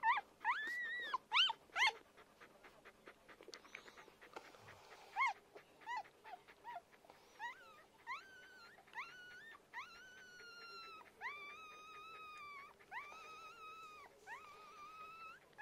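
Newborn puppies squeaking and whining while nursing: short, high rising-and-falling squeaks at first, then several longer, steady high whines about a second each in the second half.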